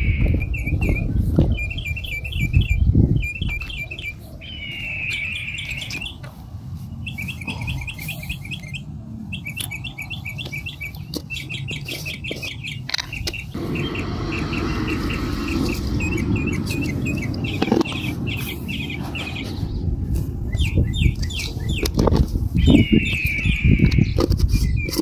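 A small bird calling again and again in quick chirping trills, with a longer downward-sliding call at the start, about five seconds in and near the end. A steady low rumble and a few knocks run underneath.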